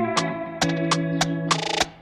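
Instrumental music: guitar over a regular drum beat.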